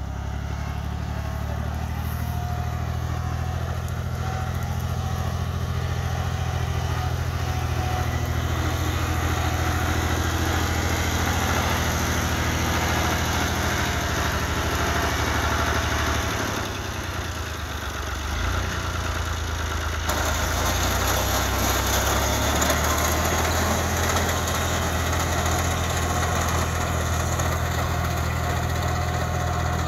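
Tractor diesel engine running steadily while it drives a mounted reaper cutting standing wheat. The engine note dips briefly and shifts a little past halfway, then carries on.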